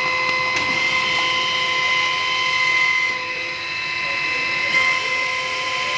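Silage baler running steadily with a constant high-pitched mechanical whine.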